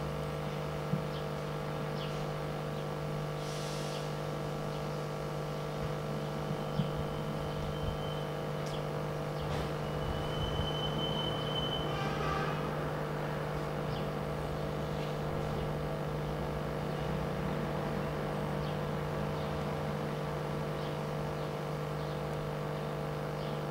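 Room tone: a steady hum made of several constant tones, with a few faint clicks and a brief thin high tone about ten to twelve seconds in.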